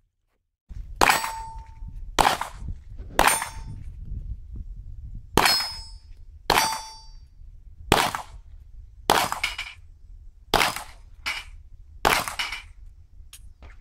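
A Glock 17 9mm pistol firing about ten shots at a steady pace of roughly one a second. Several shots are followed by a short metallic ring as the bullets strike steel plate targets.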